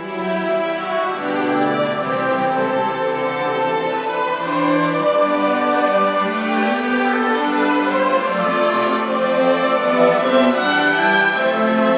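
String music, violin and cello, playing slow held notes.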